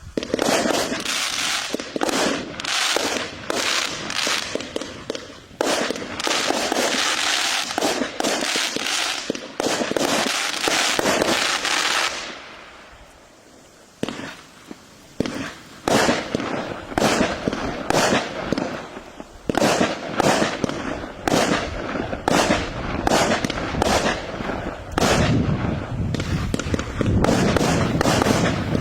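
Belrubin BL8120K Paris consumer firework cake (120 shots, 20 mm calibre) firing: a dense run of shots and bursts, a pause of about two seconds roughly twelve seconds in, then separate shots about twice a second.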